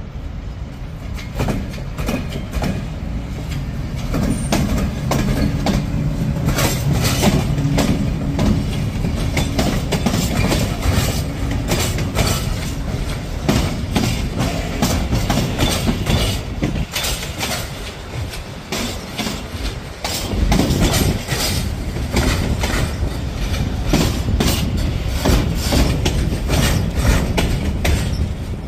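A freight train hauled by a Softronic Transmontana electric locomotive passes slowly at close range. A low hum comes as the locomotive goes by in the first several seconds, then the wheels of the flat wagons clack over the rail joints and points in an uneven rhythm. Near the end the wheels of a towed, unpowered Alstom Coradia Stream electric multiple unit follow.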